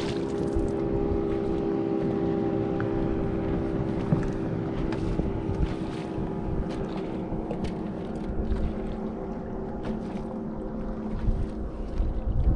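Steady electric hum from the bow-mounted Minn Kota Ultrex trolling motor, which fades somewhat after the middle, over wind on the microphone and water against the bass boat's hull, with scattered light clicks and knocks.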